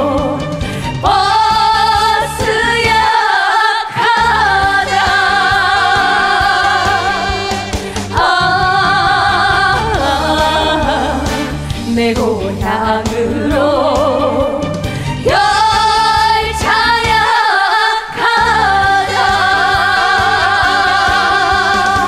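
Women singing a trot song over a backing band, holding long notes with wide vibrato. Each note lasts a few seconds, with short breaths between.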